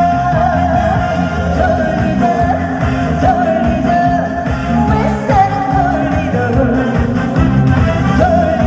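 Live amplified pop-style song: a woman singing a wavering melody over a steady, rhythmic band backing.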